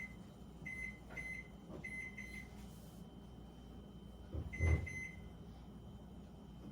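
Short electronic beeps from a microwave oven's touch keypad as buttons are pressed: several in the first couple of seconds, then two more about five seconds in with a soft knock. The microwave will not take the time being set. A low hum runs underneath.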